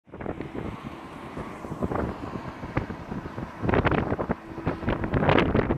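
Wind buffeting the microphone in irregular gusts, a rough rumble that gets louder from about three and a half seconds in.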